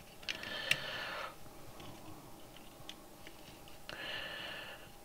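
Faint sizzle of flux and solder as a soldering iron is held on a perfboard joint, twice for about a second each. Small clicks and ticks come from the board and parts being handled in between.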